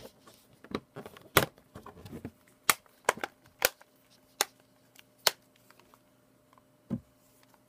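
Plastic snap clips of an HP Slate 7 tablet's back cover clicking into place as the cover is pressed down around its edges: about nine sharp snaps at uneven intervals, with a duller knock near the end.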